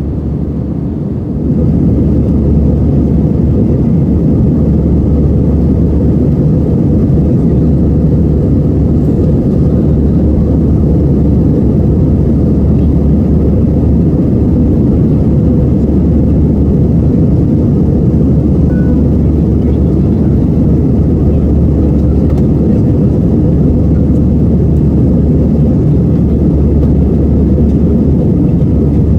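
Jet airliner cabin noise heard from a window seat in flight: engines and rushing air make a steady, dense low rumble, which steps up in loudness about a second and a half in.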